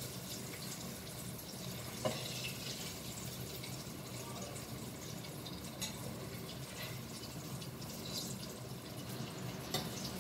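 Jiló (scarlet eggplant) strips sizzling steadily in hot frying oil in a pot, already fried through and being lifted out. A spoon knocks sharply against the pot three times, about two seconds in, near the middle and near the end.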